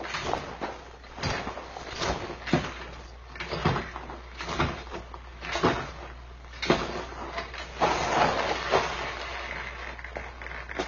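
Foley sound effects being performed: a series of knocks and scraping thuds about once a second, then a longer rustling, scraping stretch about eight seconds in.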